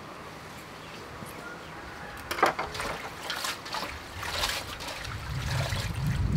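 Leafy greens being swished and lifted in a metal bowl of water: irregular splashes and drips begin about two seconds in.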